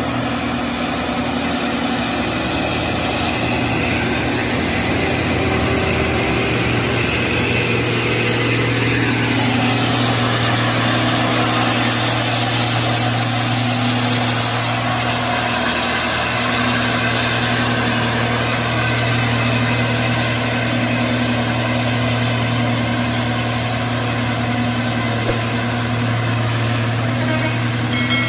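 A heavy red cargo truck's engine running steadily as it drives slowly past on a mountain road, with a bus and other traffic behind it; the noise swells as the truck passes close about ten seconds in, then eases as it pulls away.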